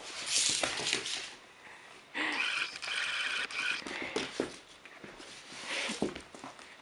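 A puppy's claws scrabbling and tapping on a slippery wooden floor, with a short high-pitched squeal about two seconds in.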